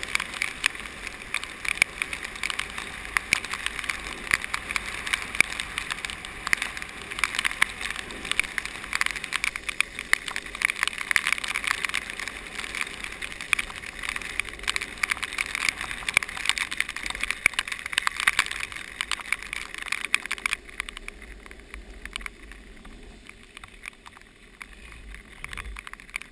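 Longboard wheels rolling fast over wet pavement: a steady grainy rush full of small clicks, which thins out and quietens about twenty seconds in.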